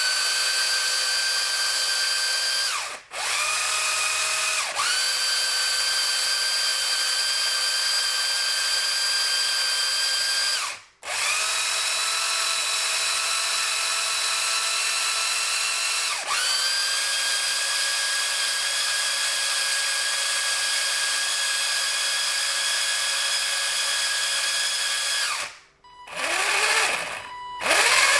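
WLToys 144001 RC car's motor and drivetrain, newly fitted with a metal centre driveshaft, running at a steady speed with a harsh grinding whine. The owner finds the noise wrong and suspects something is rubbing in the drivetrain. It runs in long stretches, cut off briefly three times, and ends with a few short throttle blips that rise and fall.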